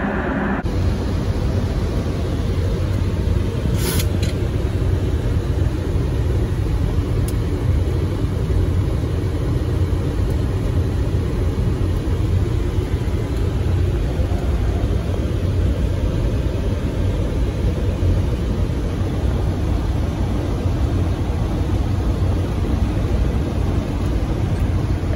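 Steady low rumble of airflow and engines heard inside a Boeing 737 MAX cockpit on approach, with a brief high click about four seconds in.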